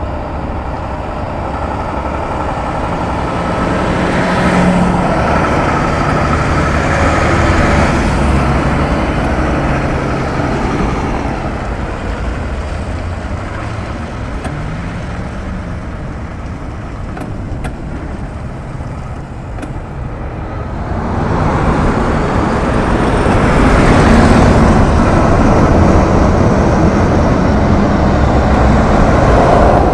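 Heavy truck engines running, with road noise. The sound swells about four seconds in and grows louder again from about twenty-one seconds on, as trucks pass or pull away.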